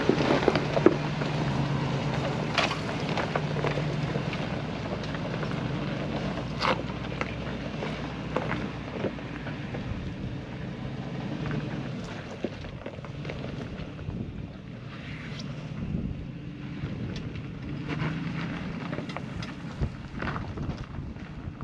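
Lexus GX470's V8 engine running at low crawling revs as the SUV climbs a rocky trail, fading as it pulls away, with tyres crunching over rocks and stones clicking and knocking underneath.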